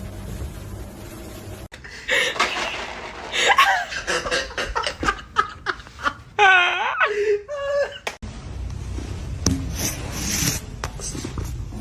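People laughing in bursts, with a gasp or two, through the middle of the stretch, between quieter room noise at either end.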